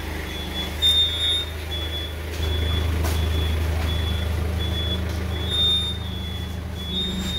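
Komatsu forklift's engine running with a steady low hum that grows louder about two and a half seconds in, while its backup alarm beeps about one and a half times a second.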